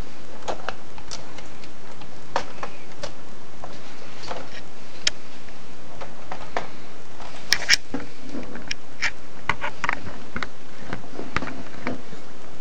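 Scattered small plastic clicks and rattles from a Lego brick-built rifle being handled and worked, with a pair of sharper clicks about halfway through, over a steady hiss.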